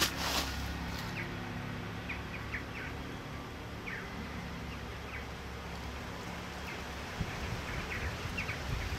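Outdoor ambience: a steady low rumble with short high bird chirps scattered through it, and a couple of brief knocks right at the start.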